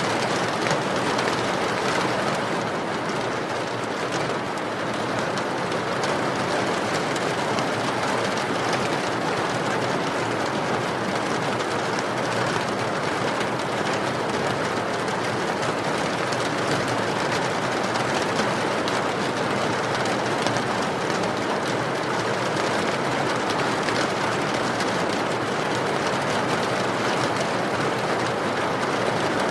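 Steady rain falling: a dense, even hiss with no change in strength.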